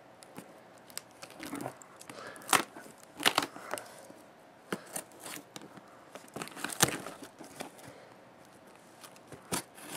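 Benchmade folding knife slicing through packing tape along the seam of a cardboard shipping box: several short, sharp rips with faint scraping between.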